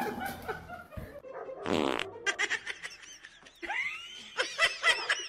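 A fart, one short raspy buzz about two seconds in, followed by a run of laughter.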